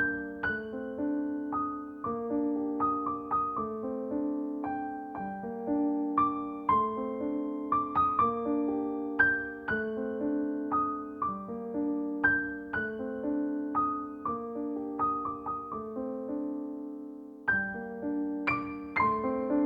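Background piano music: a gentle melody over a steady repeating accompaniment, with a short pause near the end before the notes resume.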